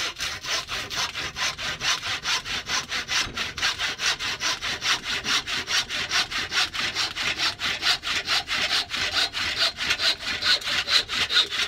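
Hand wood saw cutting through an old wooden axe handle just below the head, the handle clamped in a vise: quick, even back-and-forth strokes, about five a second, getting a little louder near the end as the cut goes through.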